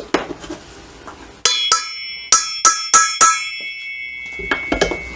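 Hammer tapping a steel punch against an aluminium oil-gallery plug in a Kawasaki Z1000 cylinder head, marking its centre for drilling. There are six sharp metallic blows about a third of a second apart, each leaving a bell-like ring that hangs on for a couple of seconds, with a few lighter knocks before and after.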